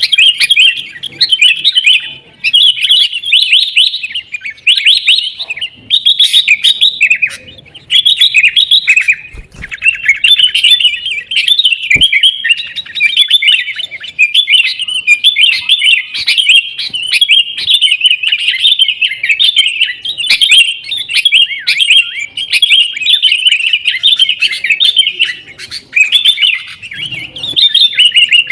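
Sooty-headed bulbuls in a noisy fight: rapid chattering and rolling calls, one phrase after another with hardly a break.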